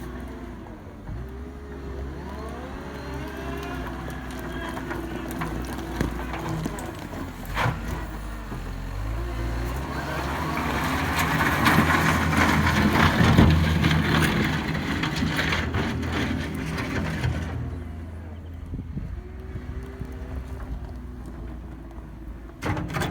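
Cat 906H2 compact wheel loader's diesel engine working, its pitch rising and falling with the throttle. It grows louder through the middle with a rushing noise and scattered knocks, then settles back.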